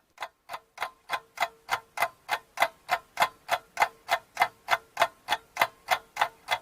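Clock ticking sound effect marking the countdown for the guess, evenly spaced at about three ticks a second over a faint steady tone.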